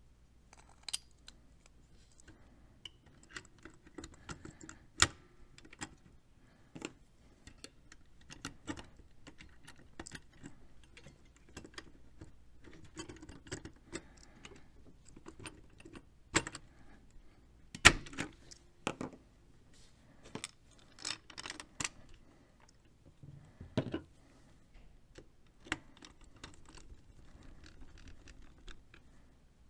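Parts of a Square D size 00 motor starter being fitted and screwed back together by hand: irregular clicks, taps and clatter of plastic and metal, with one sharper knock a little past halfway.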